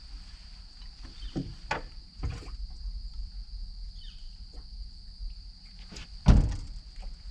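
A few knocks and thumps of someone shifting about in a small flat-bottomed fishing boat, the loudest about six seconds in, over a steady high-pitched whine and a low rumble.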